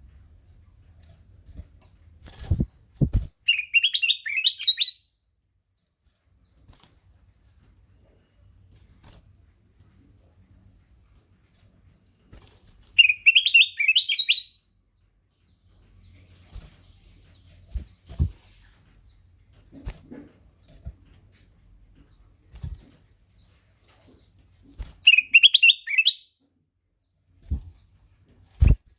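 Kutilang emas (a bulbul) singing three short phrases of quick, rising whistled notes, roughly ten seconds apart, over a steady thin high-pitched whine, with a few soft low knocks in between.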